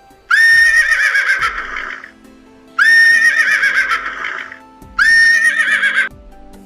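A horse whinnying three times, each call starting on a high held note and then shaking and falling away, over background music with a steady beat.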